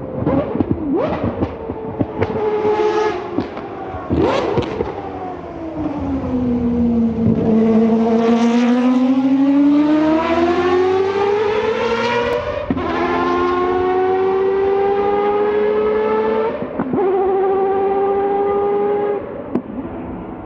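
Mazda 787B's four-rotor R26B rotary engine: a string of sharp throttle blips and cracks, then the revs sink low and climb steadily as the car accelerates. Two quick upshifts drop the pitch before it rises again, and it lifts off near the end.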